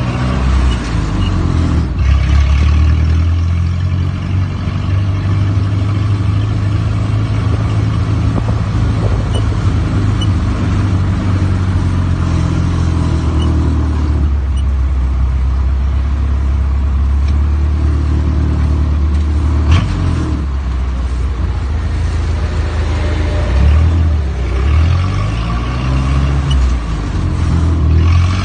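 Jeep engine running while driving, heard from inside the cabin: a steady low drone. There is a single sharp knock about twenty seconds in, and the engine pitch slides up and down for a few seconds near the end.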